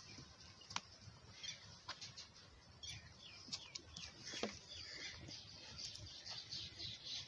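Quiet goat-pen sounds: faint scattered clicks and shuffling from goats nursing and moving, with a short run of high bird chirps about three to four seconds in.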